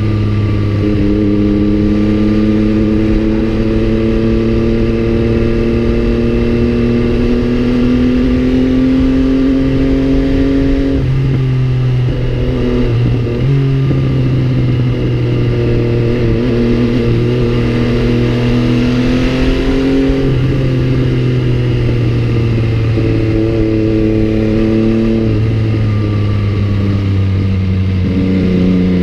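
MV Agusta Brutale 800's three-cylinder engine running under way, its note climbing slowly and shifting abruptly in pitch several times.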